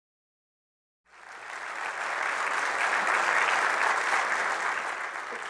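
Audience applauding: the clapping starts abruptly about a second in, swells to a steady peak and begins to die down near the end.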